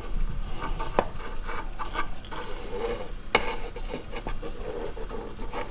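Light rubbing and scraping of hands and a tube of RTV silicone working over the transfer case housing's gasket surface, with a couple of sharp clicks of parts being handled, about a second in and again past the three-second mark.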